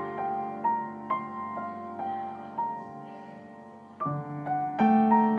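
Background piano music: a run of single notes struck one after another. It grows softer, then becomes louder again about four seconds in.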